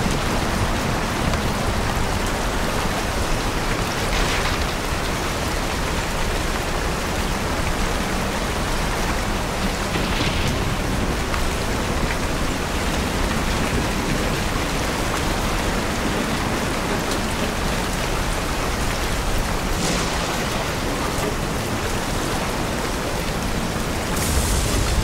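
Steady rain falling, an even hiss with a few brief swells of louder spatter. A low rumble of thunder starts building near the end.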